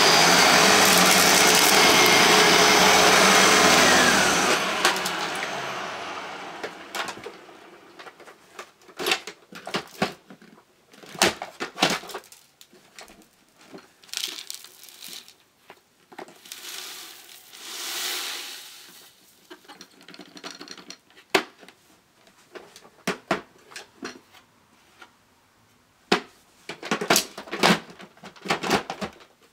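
Hoover WindTunnel self-propelled bagless upright vacuum (Model U6630) running, switched off about four seconds in, its motor winding down over the next few seconds. After that come scattered clicks, knocks and rustling, with a swell of rushing noise around eighteen seconds in as dry debris is poured onto the carpet.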